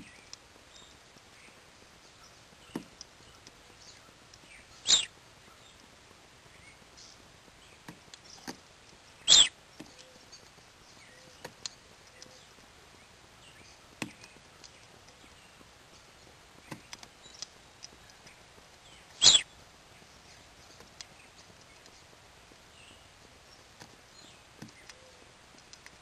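Evening grosbeak pecking and cracking seeds on a feeder tray close to the microphone: scattered light clicks, with three loud, brief knocks spread several seconds apart.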